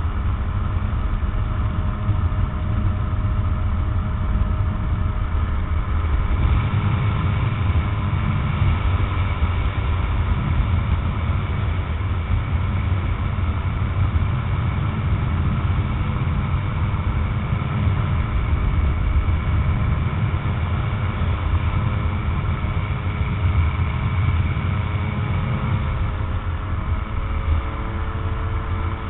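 Tanarg 912 trike's Rotax 912 flat-four engine and propeller droning steadily in cruise flight, with wind noise. The tone fills out slightly about six seconds in.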